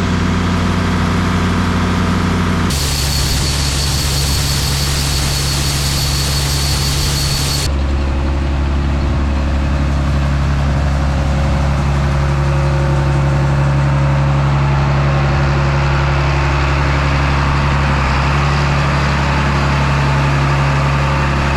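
Heavy diesel engine idling steadily, with a hiss lasting about five seconds a few seconds in.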